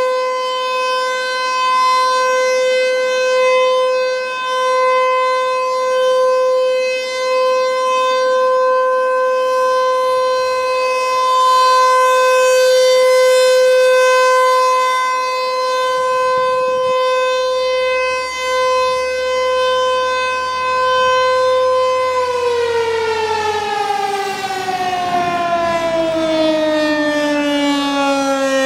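American Signal T-128 rotating electromechanical siren sounding a steady tone at full speed during a scheduled warning-system test, its loudness rising and falling as the horn turns. About 22 seconds in it cuts power and winds down, the pitch falling steadily.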